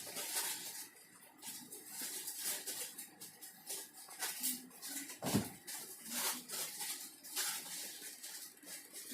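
Cats playing and scuffling: a run of short scratching and rustling sounds, with one heavier thump about five seconds in.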